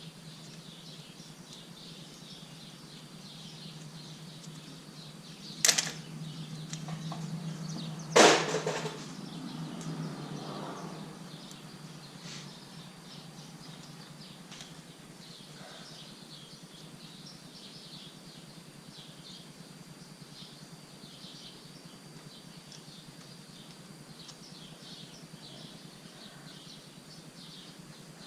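Two sharp clicks about two and a half seconds apart, over a steady background of birds and insects chirping.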